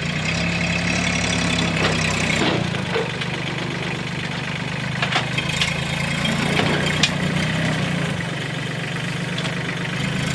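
Tractor engine running steadily at idle, with a few short metallic clanks or knocks over it.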